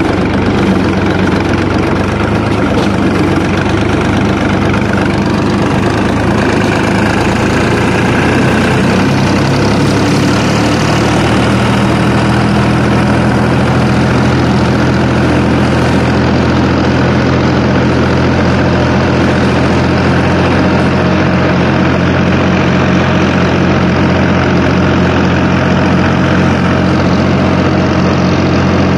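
Diesel farm tractor engine running steadily as the tractor drives along, heard close up from the seat beside the driver.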